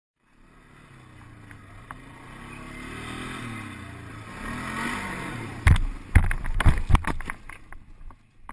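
ATV engine revving up and down twice, then a run of loud thumps and knocks about six seconds in, trailing off into smaller clatters.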